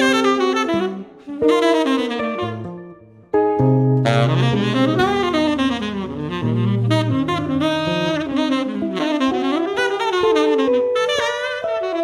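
Jazz duo of tenor saxophone and hollow-body electric guitar. For about the first three seconds the guitar plays chords alone. Then the saxophone comes in with a flowing melodic line over the guitar's bass notes and chords.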